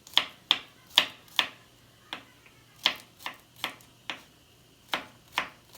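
Knife chopping garlic on a cutting board: sharp, uneven chops about two a second, with short pauses between runs.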